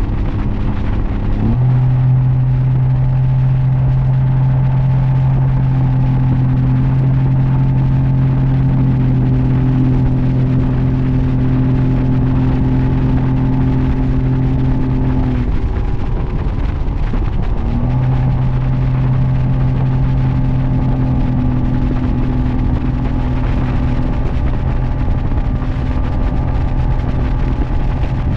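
Mercury outboard motor running at planing speed, a steady drone with the rush of the wake. About halfway through the drone eases off for two seconds or so, then climbs back up to a steady pitch.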